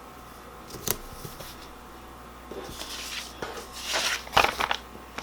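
Sticker sheets and paper being handled and rustled, with a sharp tap about a second in and louder crinkling scrapes near the end.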